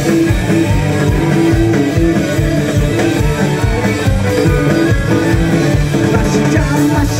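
Live punk rock band playing an instrumental stretch between sung lines: electric guitars and bass over a fast, steady drum beat.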